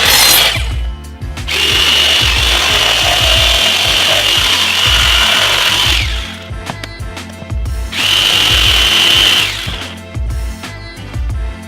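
A power tool cutting wood runs twice: a long cut of about four seconds and a shorter one near the end, each with a steady high whine. Background music plays throughout.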